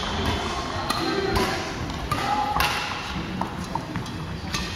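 Doubles badminton rally: rackets strike the shuttlecock in a few sharp hits about a second apart, with players' footfalls on the wooden court floor. Play has stopped by near the end.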